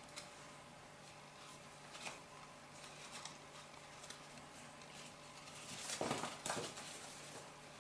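Cardstock and paper pieces being handled and folded: faint scattered rustles and soft taps, with a louder rustle about six seconds in as a card panel is folded.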